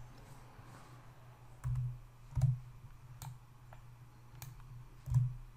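Computer mouse and keyboard clicks: about half a dozen separate clicks, the three loudest with a dull thump, over a faint steady hum.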